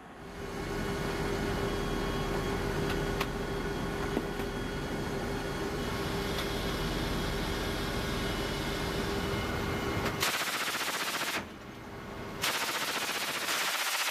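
Steady drone of the MV-22 Osprey's engines and rotors with a constant hum and a few clicks. About ten seconds in, it gives way to a .50-caliber heavy machine gun firing long rapid bursts from the open ramp, with a break of about a second between bursts.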